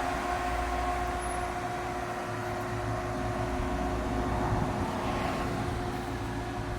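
A car running steadily, with a constant hum over a low rumble.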